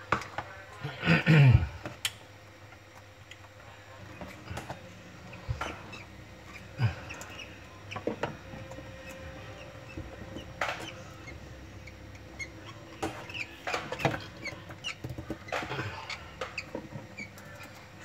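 Baby lovebird chicks giving faint, squeaky peeps, with scattered clicks and scratches of claws and handling on a wooden nest box; a louder falling call about a second in.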